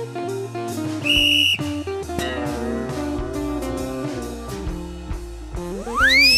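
Comic background music with plucked guitar notes and light drums. A short, steady whistle note comes in about a second in, and near the end a cartoon-style whistle slides sharply up and then falls away.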